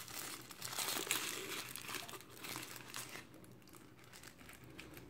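Thin white protective wrapping crinkling and rustling as it is pulled off a small glass lens by hand, busiest in the first three seconds and fading after.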